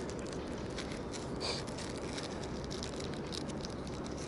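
Small clicks and rustles of fishing tackle being handled, over a steady rushing background noise.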